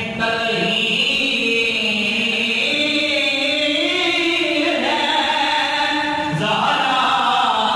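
Solo male voice reciting a naat (Urdu devotional poem in praise of the Prophet) into a hand-held microphone, singing long, drawn-out notes that slide from pitch to pitch. A new phrase begins near the end.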